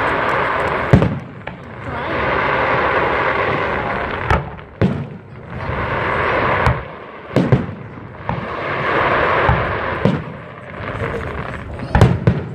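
Fireworks display: aerial shells bursting with sharp booms about six times, the loudest near the start and near the end. Between the booms come three longer swells of hiss and crackle lasting a few seconds each.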